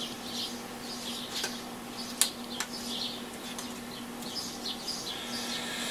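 A screwdriver prising the thin plastic dial plate of a Roberts R727 transistor radio away from its glue: faint scratching and small clicks, with one sharper click about two seconds in, over a faint steady hum.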